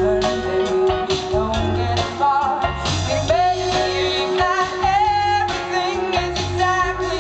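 A woman singing lead live with a band behind her, her voice gliding and wavering in vibrato over a steady beat.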